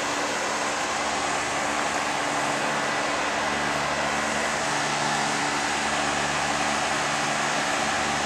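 Old Trane Weatherton heat pump running steadily: an even fan rush over a steady low hum from the compressor.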